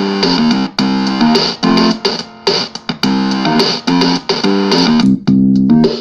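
Realistic Rap-Master toy keyboard turned into a thick, buzzy analog synth by a Timebox Crunch box, playing through a small guitar amp. It plays a rhythmic riff of short notes stepping between a few pitches, in a phrase that repeats.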